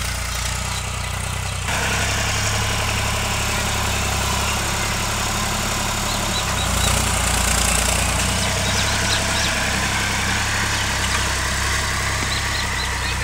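Mahindra Gujarat 45 hp tractor's diesel engine running steadily under load as it pulls a cultivator through the soil. It gets louder about two seconds in and is loudest around the middle as the tractor passes close by.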